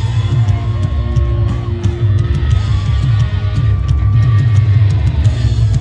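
Live country-rock band playing loud, with heavy bass and steady drum hits, and the crowd's shouts mixed in.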